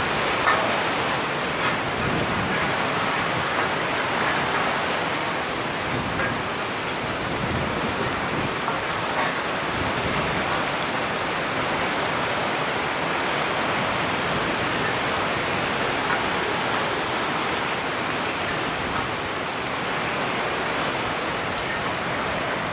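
Steady rain falling, a continuous even hiss with a few sharper drop hits now and then.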